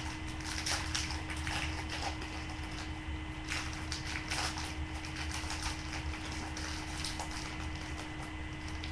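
Crinkling and tearing of a trading-card box and pack wrapper being opened by hand, in irregular rustles over a steady electrical hum.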